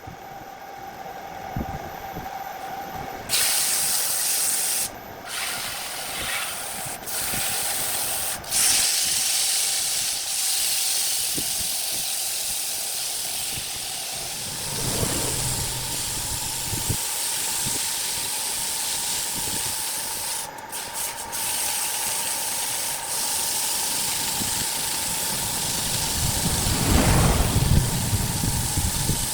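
Loud, steady hissing that starts abruptly a few seconds in and cuts out briefly a few times, over a faint constant whine, with a louder low rumble swelling near the end.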